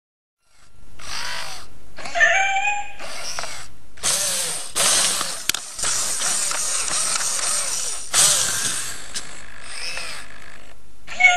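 i-Cybie robot dog moving, with the whirring and rattling of its servo motors, broken by short pauses. Short electronic animal-like cries from its speaker come about two seconds in and again near the end.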